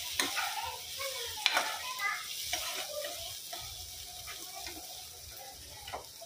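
Onions, tomatoes and dried red chillies sizzling in oil in a non-stick kadhai while a steel ladle stirs and scrapes them around the pan, with a few sharp knocks of the ladle against the pan, the loudest about a second and a half in.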